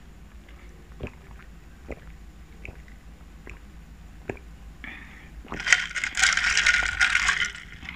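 Orange juice sipped through a drinking straw: small wet clicks of sipping and swallowing, then about five and a half seconds in a loud slurp through the straw lasting about two seconds.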